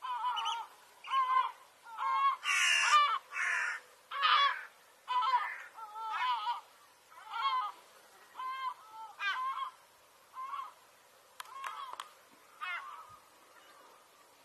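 Large gulls calling: a run of short, harsh, repeated calls, about one or two a second, growing fainter near the end.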